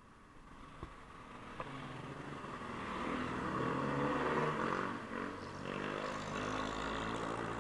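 Small motorcycle engine running and revving, its pitch wavering up and down, growing louder over the first few seconds.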